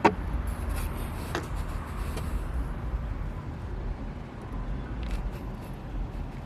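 A sharp click, then a lighter click about a second and a half later, over a steady low rumble.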